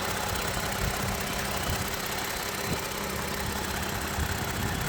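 Toyota Sienna's 3.5-litre V6 engine idling steadily.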